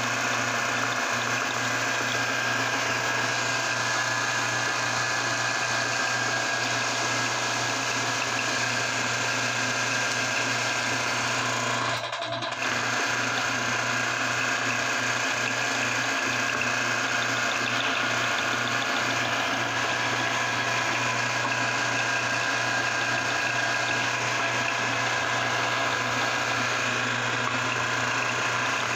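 Electric meat grinder running steadily as it grinds bubble gum and pushes it out through the plate, a constant motor hum with a brief dropout about 12 seconds in.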